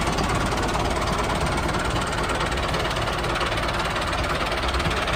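Miniature model tractor running steadily, a fast, even, rattling engine-like sound as it drives across the sand.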